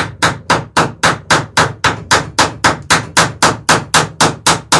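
Hammer peening a rivet in the planking of a wooden lapstrake dory. It is a fast, even run of about twenty sharp blows, close to four a second.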